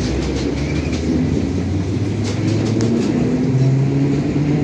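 HÉV electric suburban train pulling away close by, its traction motors humming with a low tone that climbs in steps as it gathers speed.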